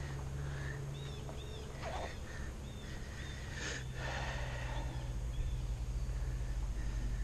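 Birds chirping in the riverside trees: a string of short, arched chirps repeated every half second or so, over a steady low hum.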